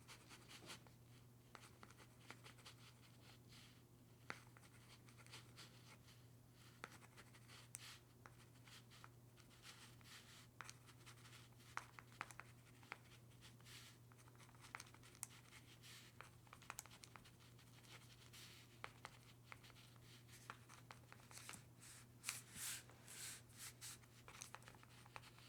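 Pen writing on paper: quiet, irregular scratches and small ticks as the nib moves across the page, with a run of longer, louder strokes near the end. A faint steady low hum lies underneath.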